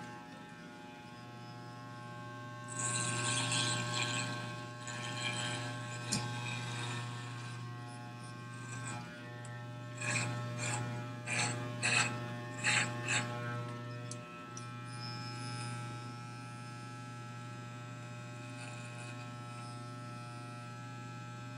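Corded electric hair clippers running with a steady electric buzz, set with the blade lever opened for a longer cut. The sound turns rougher and louder for a couple of seconds early on and in several short strokes around the middle as the blades cut through hair.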